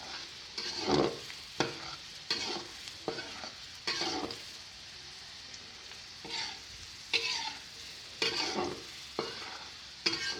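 Minced garlic sizzling in hot oil in a frying pan while a spatula stirs and scrapes it. The strokes come about once a second, with a pause in the middle. The garlic is cooking until it turns golden.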